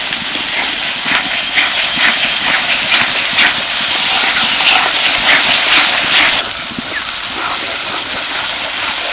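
Tomato and spice paste sizzling and crackling in hot oil and ghee in a kadai while a spatula stirs it, as the masala is fried down (koshano). The sizzle grows louder in the middle and drops to a quieter, duller level after about six and a half seconds.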